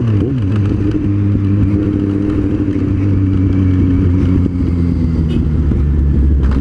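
Kawasaki Z750 inline-four with a Two Brothers aftermarket exhaust under way. The note dips as the throttle eases at the start, then holds a steady, slowly falling drone, with a short dip and pick-up near the end.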